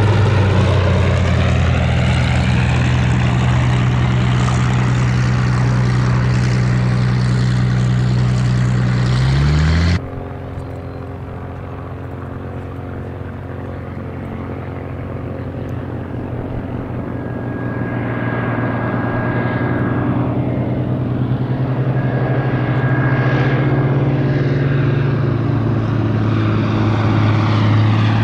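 Hawker Hurricane Mk.I's Rolls-Royce Merlin V12 engine and propeller passing loud and low, the pitch dropping as it goes by before cutting off suddenly about ten seconds in. It then comes back quieter, as a steady drone that grows steadily louder as the aircraft comes in to land.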